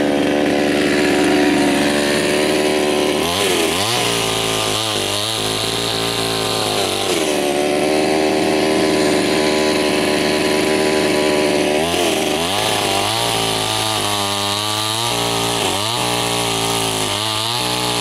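Two-stroke chainsaw cutting firewood logs. It runs at high, steady revs, then twice drops to a lower, uneven note, about three seconds in and again about twelve seconds in, and revs back up between the two drops.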